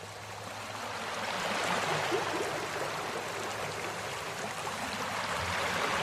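Small waterfall: water rushing and splashing over rock ledges into a pool, a steady dense rush that fades up over the first two seconds.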